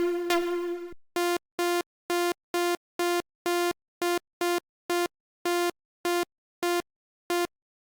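Sylenth1 software synthesizer playing a preset: a bright synth note fades out over the first second, then one bright, buzzy note repeats on the same pitch in short stabs, about three a second.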